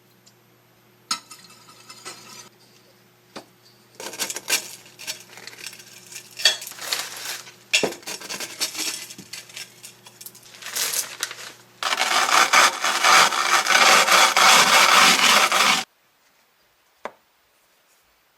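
Breakfast being prepared with dishes and utensils: a click, then a stretch of clinking and rustling. Loudest is about four seconds of dense, continuous noise that stops abruptly, followed by one light knock.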